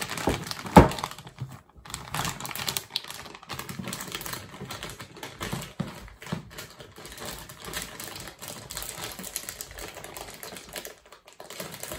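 Clear plastic packaging bag crinkling and rustling while being handled and opened, as a dense run of small crackles and clicks. A single sharp click, the loudest sound, comes about a second in.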